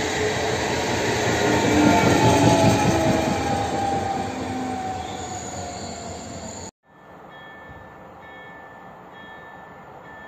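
An EN76 electric multiple unit (PESA Elf) passes and pulls away, with dense wheel and running noise loudest about two seconds in and fading as it recedes, and thin whining tones that slowly fall in pitch. The sound cuts off abruptly about two-thirds through, and a much quieter steady hum with faint high tones follows.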